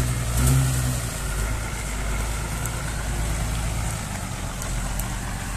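Toyota Land Cruiser LJ70's four-cylinder diesel engine running at low revs as the truck crawls over a muddy trail, with a brief rise in revs about half a second in, then running evenly.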